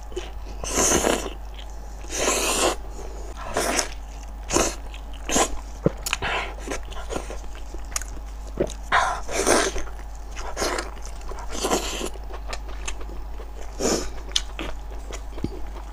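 Close-miked eating of soft, oily spicy food: wet slurping, sucking and chewing come irregularly, with louder slurps every second or two and small mouth clicks between them.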